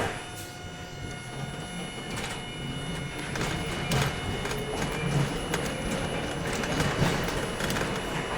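R42 subway train pulling away and gathering speed. It makes a steady rumble with a few faint steady tones and scattered clicks, growing gradually louder.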